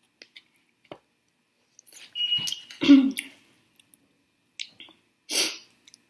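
Close-miked chewing and mouth sounds of someone eating chicken wings: scattered small wet clicks, a louder cluster about two to three seconds in, and one short noisy burst near the end.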